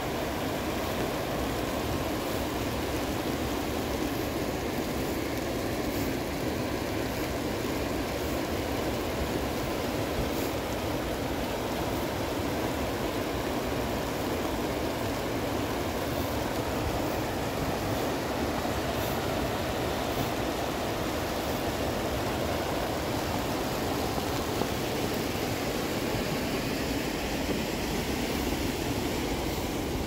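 Fast-flowing mountain creek rushing over rocks: a steady, even roar of water that does not let up.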